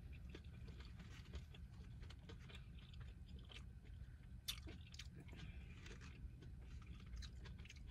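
A person chewing food close to the microphone, faint, with irregular small mouth clicks over a low steady hum.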